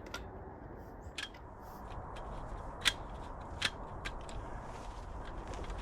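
Camping gear being handled: a few sharp clicks, about a second in, near three seconds and just after, over a steady low background rumble.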